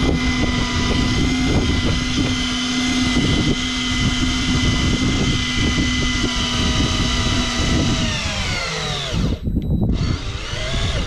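Electric fishing reel's motor winding in line with a steady whine, reeling up a hooked fish. About eight seconds in it slows with a falling pitch and stops, then briefly spins up again near the end.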